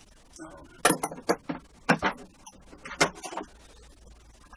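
Steel ratchet and sockets from a socket set clinking and knocking as they are handled, a few sharp irregular metal clinks over the first three seconds or so.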